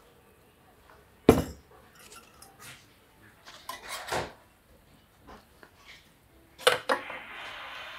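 Clattering of a metal coffee dripper, a glass server and a metal jug as they are handled and set down, with the loudest knock about a second in, light clinks in the middle and two knocks near the end. A steady hiss sets in just after the last knocks.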